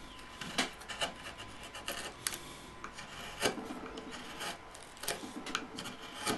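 Hand-pushed carving gouge paring into white oak to scoop out a shallow hollow: irregular scraping strokes with a few sharper clicks as the edge cuts through the wood.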